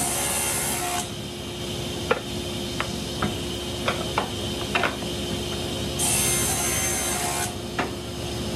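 Table saw running steadily, its blade cutting through a wood board twice: the first cut ends about a second in, and a second cut runs from about six to seven and a half seconds. Between the cuts, wood pieces knock and clatter as they are handled on the saw table.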